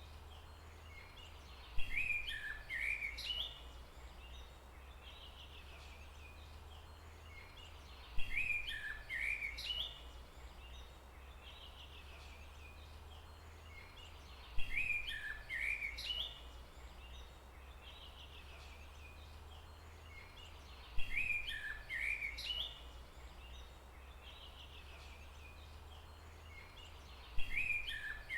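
A bird's song, a short phrase of quick gliding chirps that repeats five times, about every six seconds, each time the same, over a steady low rumble.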